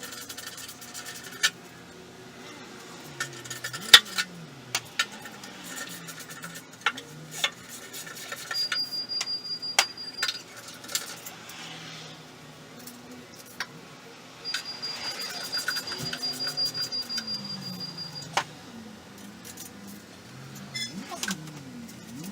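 Scattered metallic clinks and clatter, with a high steady whine in two stretches, the second about twice as long as the first.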